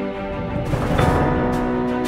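Instrumental theme music with sustained chords; a rising swell and a low hit come about halfway in, after which a beat of regular percussive strikes starts.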